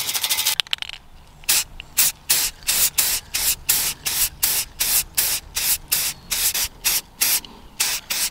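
Aerosol spray paint can hissing in about twenty short bursts, two to three a second, as paint is sprayed onto a steel trailer frame.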